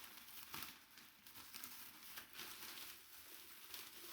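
Faint crinkling and rustling of plastic packaging as it is handled and pulled off a wrapped item, with a few brief handling noises.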